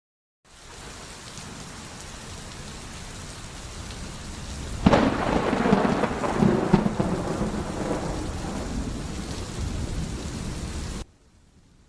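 Thunderstorm: steady rain, then a sharp thunderclap about five seconds in that rolls into rumbling thunder over the rain. The storm cuts off suddenly about a second before the end.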